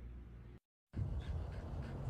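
Faint background noise that drops to dead silence for a moment at an edit, then a low rumble like wind on the microphone outdoors.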